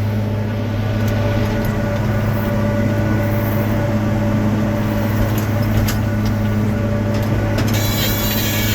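Tractor engine running steadily while a round baler forms a bale, with a few faint clicks and a hiss starting near the end.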